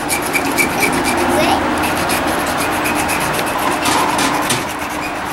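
Sandpaper rubbing against a small wooden top spinning on a wood lathe, a steady rasping hiss with the lathe running underneath.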